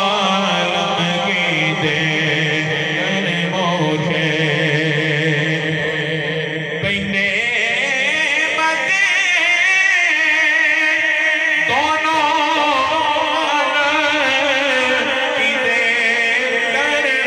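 Men's voices chanting a naat, an Urdu devotional poem in praise of the Prophet, in a sustained, wavering, ornamented melody; a new phrase comes in about twelve seconds in.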